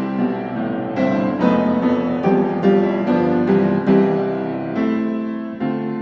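Background piano music, with notes and chords struck about twice a second.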